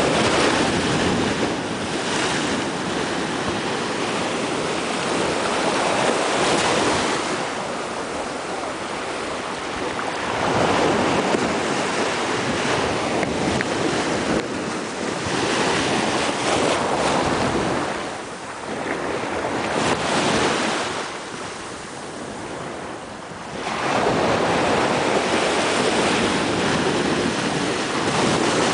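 Small waves breaking and washing against a rocky reef at the shoreline, the surf swelling and easing every few seconds.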